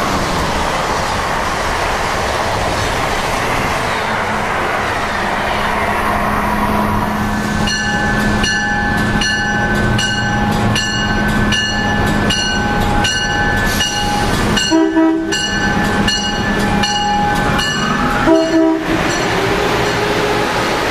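Amtrak HHP-8 electric locomotive pulling into the station, ringing its bell about one and a half strikes a second, with two short horn blasts in the last third. Before the bell starts, the steady rumble and hum of a passing train.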